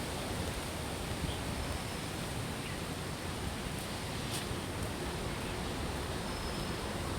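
Steady outdoor background noise, an even hiss, with a few faint short high chirps.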